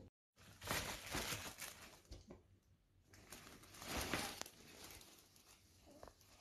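Fabric bag rustling and crinkling as a small pet moves against it and pushes under it, in a few noisy bursts, with one short sharp click about four seconds in.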